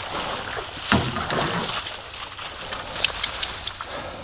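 Dry bulrush stalks rustling as a dog pushes through them beside a canoe, with water sloshing against the hull and a couple of short knocks.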